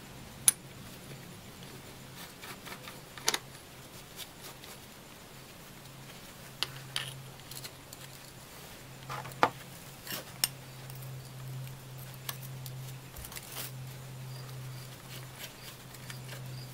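Scattered sharp metallic clicks and clinks as a pulley puller and its bolts are handled and fitted onto a power steering pump pulley, over a steady low hum.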